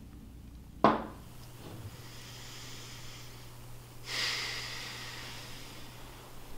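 A single sharp knock about a second in, followed by a steady low hum; around four seconds in, a short hissy breath, a person exhaling through the nose.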